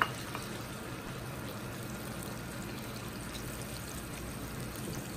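Chicken broth going into a hot frying pan of chicken and mushrooms, the liquid sizzling and bubbling steadily. A short knock sounds right at the start.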